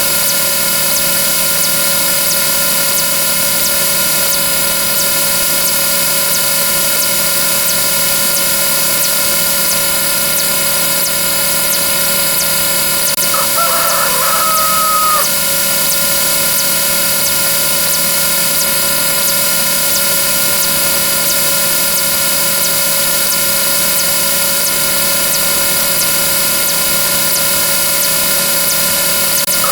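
A dense stack of rapidly repeating sound effects that merge into a loud, steady, buzzing drone. A rooster-crow sound effect cuts through twice: about halfway through and again at the very end.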